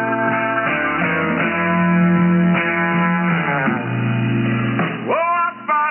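Guitar music from a shortwave pirate radio broadcast, received in upper sideband, with the narrow, tinny sound of single-sideband reception. Notes bend up and down in pitch near the end.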